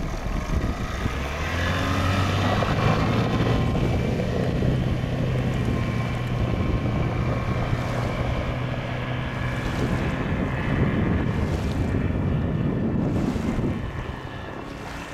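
Outboard motor on a small aluminium fishing boat running at speed, a steady engine note that grows louder in the first couple of seconds and drops off near the end. Wind on the microphone runs underneath.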